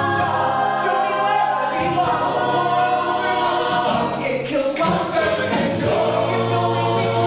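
Music: several voices singing together like a choir, holding sustained chords that change every couple of seconds, with accompaniment.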